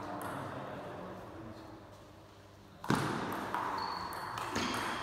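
Table tennis ball struck in a rally: a sharp knock about three seconds in, then another about a second and a half later.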